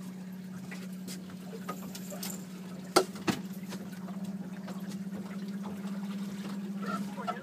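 Boat's outboard motor idling with a steady low hum, with faint water sounds and two sharp knocks about three seconds in, a third of a second apart.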